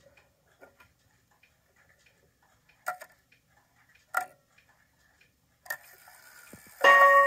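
Spiegel 31-day wall clock movement clicking faintly as its hands are turned by hand. Near the end the strike train whirs off, and the hammer hits the gong once with a loud, ringing tone: the rack-and-snail strike beginning to count the hour.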